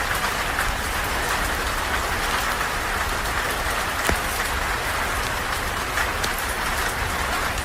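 Steady rain falling, with a few scattered sharp clicks.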